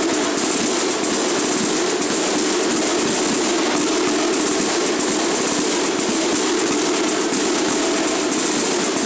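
Marching side drums played together in a fast, continuous stream of strokes, with no melody instrument.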